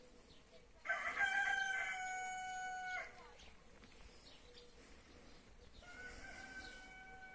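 A rooster crowing: one loud crow of about two seconds starting about a second in, then a fainter crow beginning about six seconds in.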